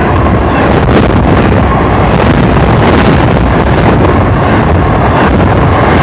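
Intermodal freight train cars loaded with highway trailers rolling past at close range: a loud, steady rumble and rush of wheels on rails, with wind buffeting the microphone.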